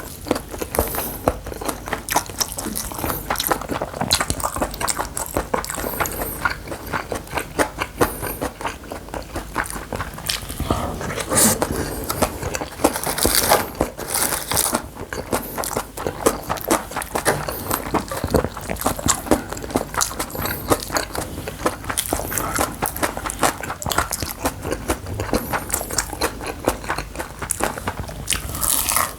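Close-miked eating sounds of bibimbap: steady chewing with many small wet clicks and crunches from the mouth, going on without pause.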